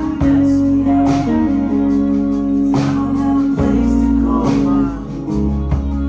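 Live band playing, with electric and acoustic guitars, keyboard and drums.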